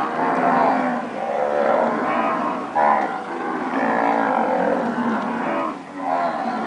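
A herd of Nelore cows mooing, many overlapping calls one over another without a break.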